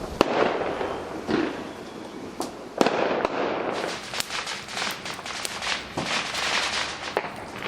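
Fireworks going off: a run of sharp bangs and pops over a steady crackle, with the loudest bangs just after the start and about three seconds in.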